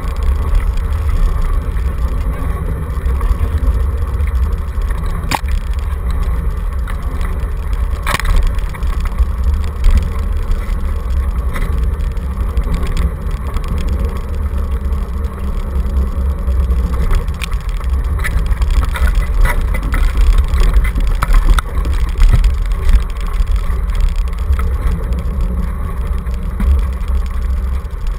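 Dog scooter rolling fast over a rough dirt trail: a loud, steady low rumble of the wheels and frame, with lighter rattles and two sharp knocks, about five and eight seconds in.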